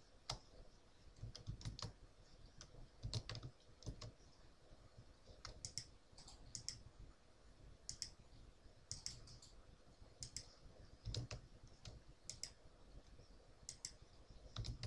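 Faint, irregular clicking of a computer mouse and keyboard, a click or a quick pair of clicks every second or so.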